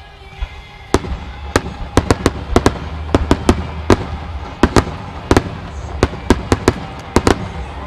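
Starmine fireworks: a rapid volley of aerial shell bursts. Sharp bangs come about three a second over a continuous low rumble, thickening about a second in.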